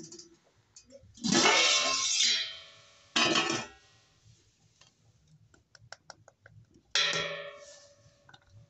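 Liquid splashing into a steel pot in three short bursts, the last trailing off with a faint metallic ring, with a few light clinks between them.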